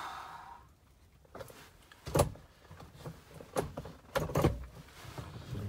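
A few scattered clicks and knocks from handling things inside a car cabin while the stalled engine stays silent.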